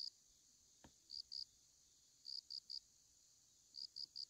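Crickets chirping faintly: bursts of two to four short, high chirps every second or so, over a steady high insect drone.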